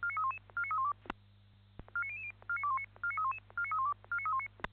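Electronic beep sequence, like phone keypad tones: quick runs of four or five short beeps stepping up and down in pitch, about two runs a second. A short pause about a second in is broken by sharp clicks, all over a low steady hum.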